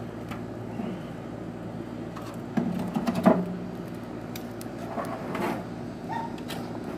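Cast-iron grill grates clanking and scraping against a steel barrel charcoal grill as they are moved with tongs, with a sudden clatter a little over two and a half seconds in, the loudest clank just after, and a few lighter knocks later.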